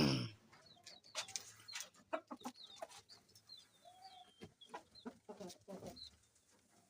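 Chickens clucking, with a louder call right at the start, short high falling peeps, and scattered clicks and knocks throughout.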